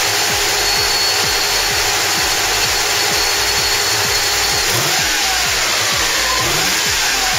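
1984 Mercedes-Benz 380SE V8 engine running steadily, freshly fitted with new spark plugs to cure a rough idle.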